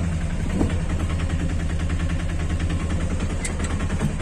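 Auto-rickshaw engine running steadily under the passenger cabin while the vehicle drives, a low, even drone with a fast regular pulse.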